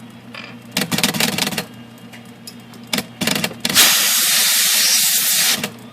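Spray hissing into the IBM Selectric II's mechanism to flush a gummed-up shaft: a few short bursts, then one steady hiss of about two seconds near the end. Under it runs the low steady hum of the typewriter's motor.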